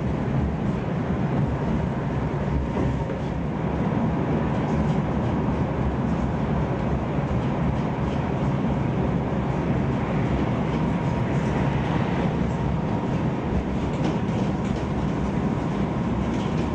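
Tram running along street track, heard from inside the passenger car: a steady low rumble of wheels and running gear.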